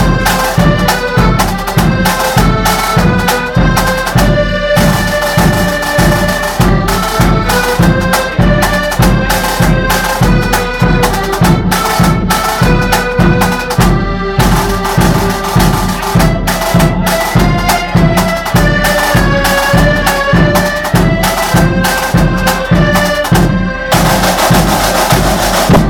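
Accordion band playing a march: accordions carry the melody in held, chord-like notes over a steady beat of drums. The melody stops shortly before the end.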